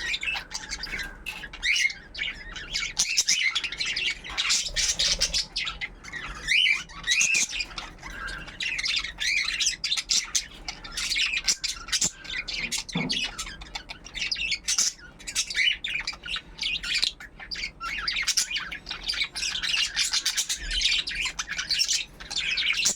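A flock of budgerigars and cockatiels chirping and squawking together in a dense, unbroken chatter of overlapping high calls.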